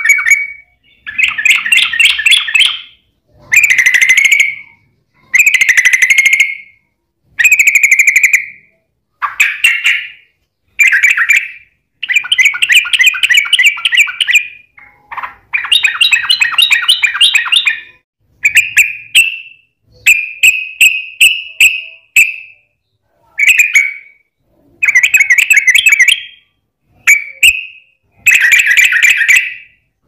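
Yellow-vented bulbul (trucukan) singing its long, rapid chattering song: about fifteen bubbly bursts of quick notes, each one to two seconds long, with short pauses between them.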